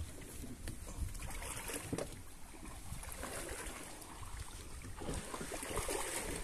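Water sloshing against the hull of a small open boat moving along a river, with wind buffeting the microphone and a few light knocks.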